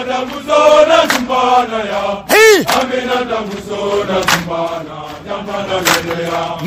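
Soldiers' voices chanting a military marching song. About two and a half seconds in, a loud call rises and falls in pitch.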